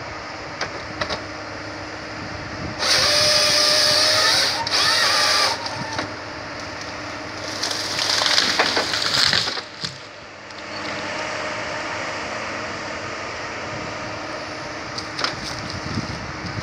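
Tracked forestry harvester running steadily while its harvester head works pine logs, with loud bursts of sawing and splintering wood about three and five seconds in and again around eight to nine seconds.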